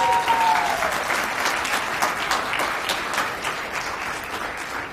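Audience applauding, with one drawn-out voiced cheer over the first second; the clapping slowly dies away.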